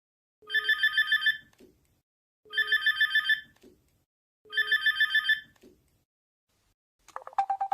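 Phone ringtone: a fast electronic trill in three rings of about a second each, two seconds apart. Near the end a different, lower pulsing ringtone starts.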